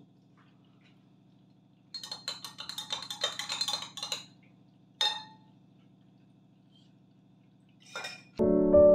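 Metal spoon stirring in a drinking glass, clinking quickly against the sides for about two seconds, then one ringing tap on the glass. A brief knock near the end as a small glass jar is picked up, and piano music starts just before the end.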